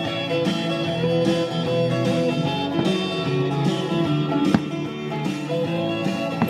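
Country music in an instrumental stretch between sung lines, led by strummed guitar. There is a single sharp click about four and a half seconds in.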